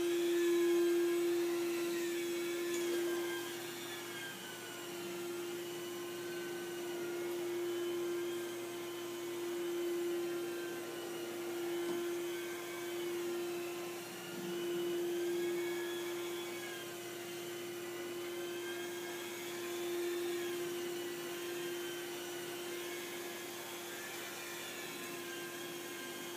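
Carpet extractor's vacuum running steadily as the cleaning wand is worked over carpet: a constant hum with a higher whine that wavers up and down every few seconds.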